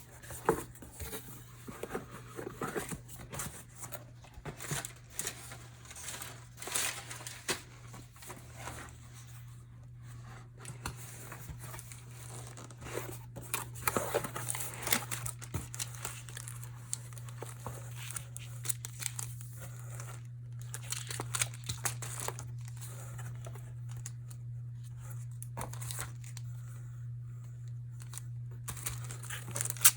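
Packaging being unwrapped by hand, crinkling and tearing in irregular bursts, over a steady low hum.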